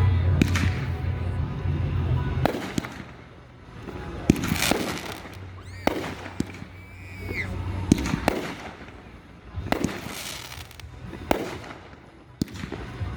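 Fireworks display: a series of aerial bursts, sharp bangs every second or two, each followed by crackling, with a brief whistle about halfway through.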